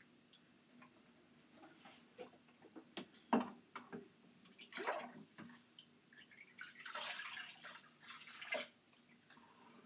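Water splashing and dripping in a plastic tub in a kitchen sink as a hairless cat is rinsed of soap by hand. There are a few sharp splashes, and about seven seconds in a longer rush of water poured from a cup.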